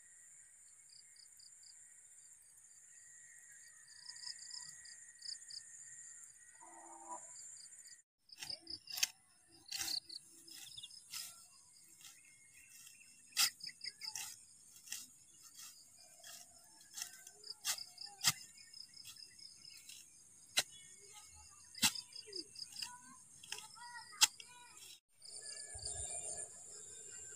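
Insects shrilling in a field: a steady high-pitched hum with short repeated chirps. About a third of the way in the sound cuts out, and a stretch of scattered sharp clicks and taps follows before the steady high shrilling returns near the end.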